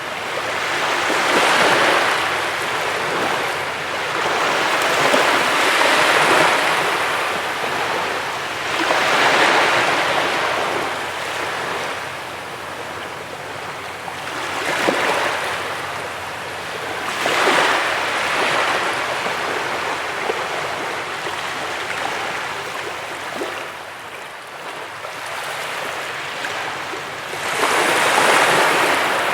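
Sea waves breaking and washing up a beach, each surge of surf swelling and fading every few seconds, with a longer lull near the end before a last big wave.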